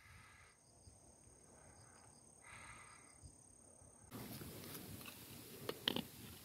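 Faint quiet forest ambience with a thin steady high tone. About four seconds in it gives way to rustling and scraping of soil and leaf litter being dug, with a few sharp clicks near the end.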